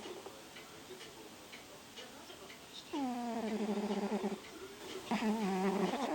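A sleeping cat snoring: two drawn-out snores, each about a second long with a slight dip in pitch at the start and then a steady tone. The first comes about three seconds in and the second about five seconds in, with a third, falling snore just starting at the very end.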